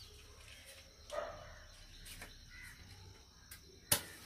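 A crow caws once about a second in over a faint background of birds and insects. Just before the end comes one short, sharp scrape of a match struck against its matchbox.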